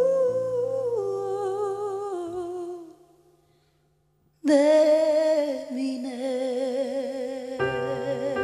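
A woman's singing voice holds the last sung note of a ballad over soft accompaniment, steps down in pitch and fades out about three seconds in. After a second and a half of near silence the woman's voice comes back in suddenly with a wavering, wordless line, and guitar and keyboard join near the end.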